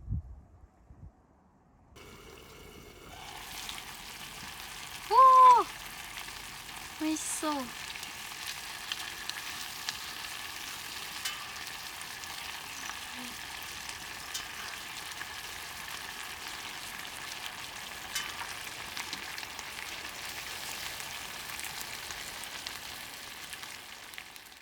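Food frying in a pan, a steady sizzle full of fine crackles that starts about two seconds in. About five seconds in there is a short, loud pitched sound that rises and falls, and a quieter falling one follows about two seconds later.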